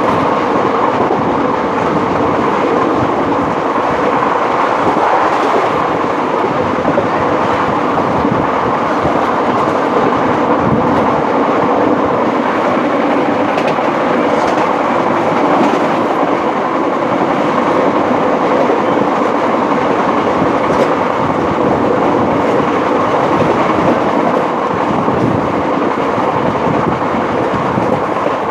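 Express passenger train running at speed, heard from inside the moving coach: a loud, steady rumble with the wheels clattering over the rail joints.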